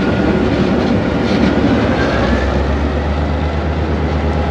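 GMU-15 diesel-electric locomotive running under way, heard from inside the cab: a steady low engine drone over wheel and rail noise, the low engine note growing stronger about two seconds in.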